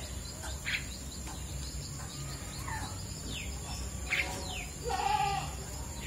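Starling nestlings calling: short, thin, falling chirps repeat throughout, with a louder, harsher call about five seconds in.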